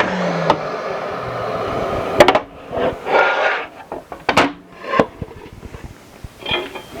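Festool track saw finishing a cut on plywood, its steady running noise lasting about two seconds, then a string of sharp knocks and clunks as the saw and guide rail are handled.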